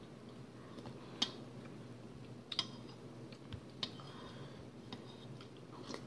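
Metal spoon clinking lightly against a soup bowl as soup is scooped, several light clicks about a second apart.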